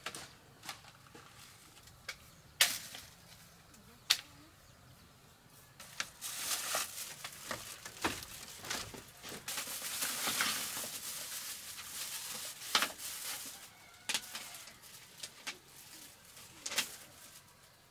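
Scattered sharp knocks of footsteps on a slatted bamboo floor, with a plastic bag rustling heavily in the middle stretch.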